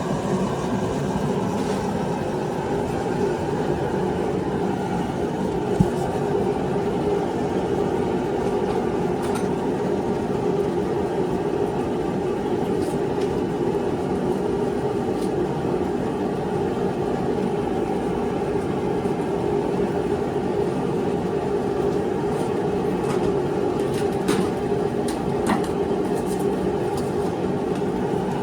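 A steady mechanical drone runs without a break, with a few light metallic clicks on top.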